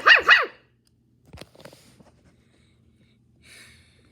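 A child's voice imitating a dog barking loudly, a quick run of about three barks right at the start. Then faint clicks and rustles of toys being handled.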